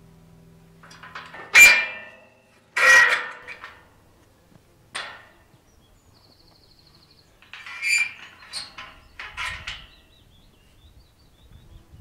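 Metal field gate being unlatched, swung and shut: a handful of sharp clanks and rattles of the latch and steel bars, two loud ones in the first few seconds, a lighter one after, then a cluster of clanks near the end.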